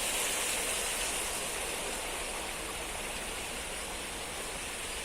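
Stream water flowing and splashing in a steady rush, a small cascade under hanging vines.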